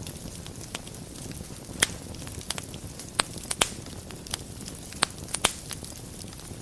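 Wood fire burning in a fireplace: a steady low rumble of flames with sharp, irregular crackles and pops, several louder snaps scattered through.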